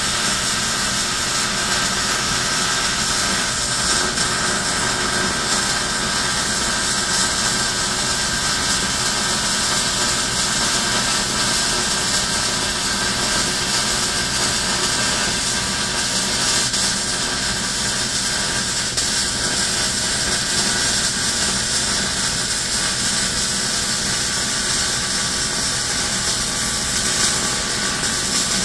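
A shop ventilation fan running steadily and loudly, with MIG welding on the steel box going on under it.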